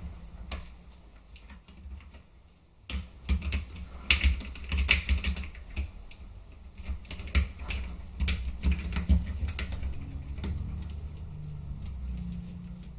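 Irregular small clicks and taps of plastic and metal parts being handled and fitted together while an airsoft rifle is reassembled. The clicks are sparse at first and come thick and fast from about three seconds in.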